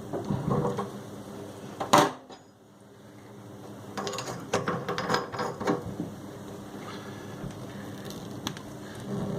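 Metal clinks, clicks and scrapes of chrome tap parts being handled and fitted by hand as the valve cover goes back onto the tap body. There is one sharp knock about two seconds in, and a cluster of quick clicks midway through.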